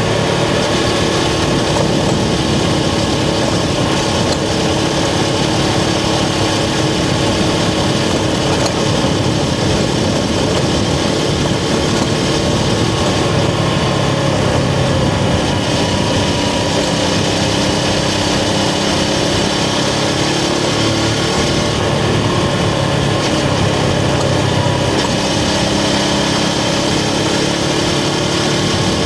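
Suzuki GS500's air-cooled parallel-twin engine running steadily under way, heard from the rider's position over a constant hiss of wind and road noise, its pitch shifting slightly now and then.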